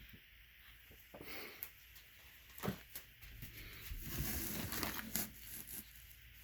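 Packaging being handled during unboxing: rustling, with a few light knocks. The rustling is loudest in the second half.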